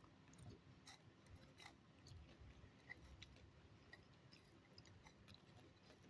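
Faint, close-miked chewing of soft omelette, with scattered small wet clicks of the mouth.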